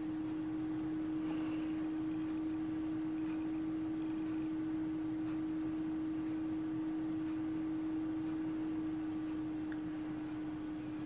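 A steady low hum at one pure pitch, unchanging throughout, with a few faint light clicks.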